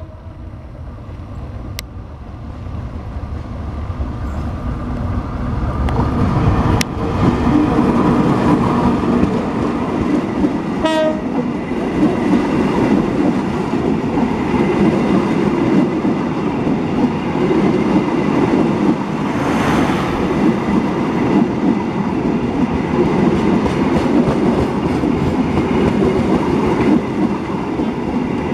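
Diesel locomotive coming on and passing close, then a long line of passenger coaches rumbling and clattering over the rails. The sound builds over the first several seconds and then holds steady. A short horn blast sounds about eleven seconds in.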